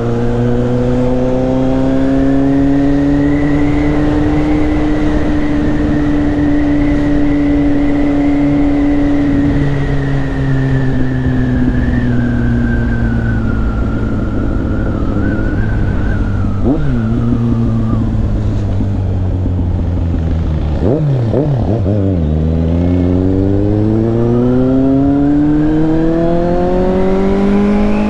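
Motorcycle engine on the move with wind rush over the microphone: it holds a steady pitch while cruising, eases off slowly, gives a couple of quick jumps in pitch about two-thirds of the way through, then rises steadily in pitch as it accelerates near the end.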